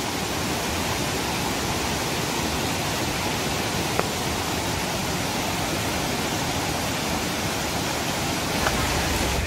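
Steady rush of a strongly flowing mountain stream pouring over rocks, with one brief click about four seconds in.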